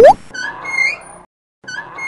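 Cartoon sound effects for a hanging sign: a sharp pop as one of its pins comes loose, the loudest sound, then the sign's hinge squeaking twice as it swings, each squeak rising in pitch.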